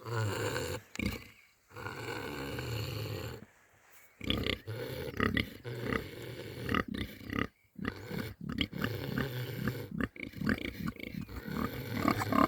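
Two animals snoring in their sleep: two long rasping breaths in the first few seconds, then from about four seconds in a busier run of short, uneven snores and grunts that grow louder toward the end.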